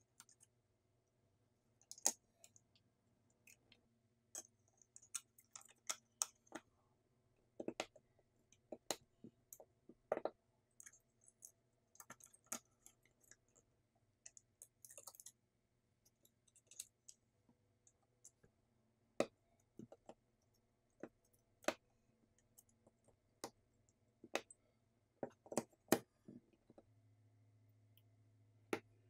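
Irregular small clicks and taps of iPhone 16e parts being pressed and snapped into the phone's frame by hand during reassembly, with a few sharper snaps among them.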